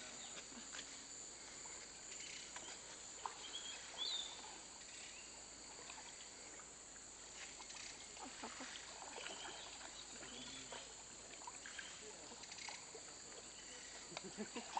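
Rainforest insects droning steadily in a high pitch, with faint scattered splashes and sloshing of water as a person wades through a shallow stream.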